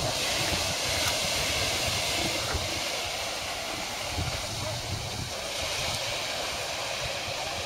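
Surf washing in and breaking around rocks at the shoreline, a steady rushing hiss, with irregular low buffeting of wind on the microphone underneath.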